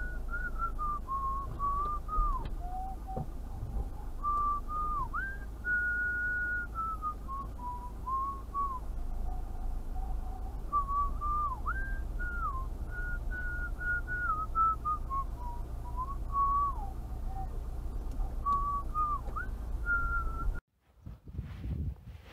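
A person whistling a tune, one clear note at a time, rising and falling, over a low steady hum. The whistling cuts off suddenly near the end.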